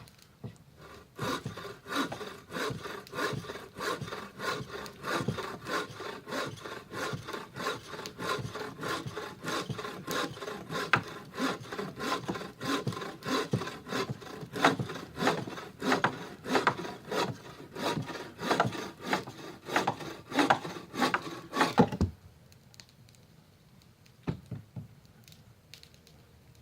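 Hand saw cutting through wood with steady back-and-forth strokes, about two a second, then stopping abruptly.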